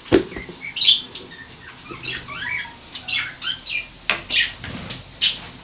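Hamster moving about on a ceramic food dish in a plastic cage: several sharp clicks and light scrapes, with many short, high squeaky chirps in between.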